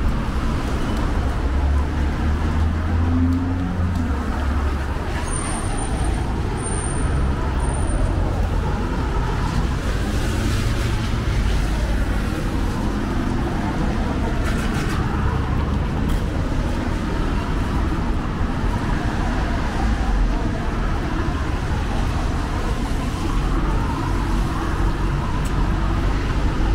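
City street traffic: cars and buses running past, with tyres hissing on the wet road and a steady low rumble of engines.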